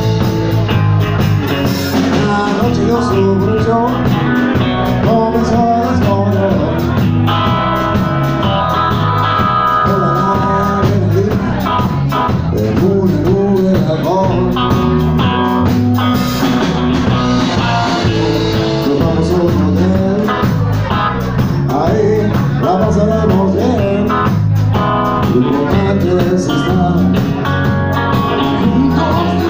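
Live rock band playing an instrumental stretch of a song: a Stratocaster-style electric guitar plays a lead line with bending notes over bass guitar and a drum kit.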